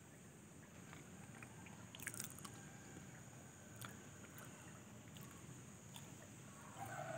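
Faint rice-field ambience: a steady high-pitched insect drone, with a short cluster of soft crunchy clicks about two seconds in and a few single clicks after. A louder pitched sound comes in just before the end.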